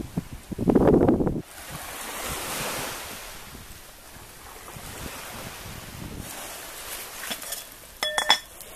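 Surf washing on a beach, with wind buffeting the microphone hard in the first second or so. About eight seconds in, a few ringing metallic clinks from an aluminium cooking pot.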